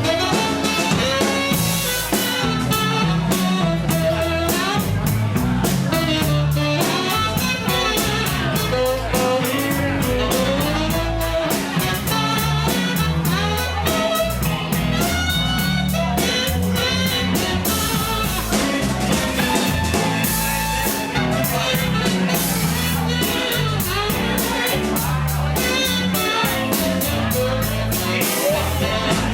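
Blues-rock band playing an instrumental solo break: a lead instrument plays a bending melodic line over bass and drums.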